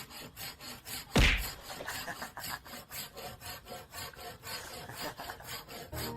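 Repeated scratching or rasping strokes, a few a second, with one louder knock about a second in.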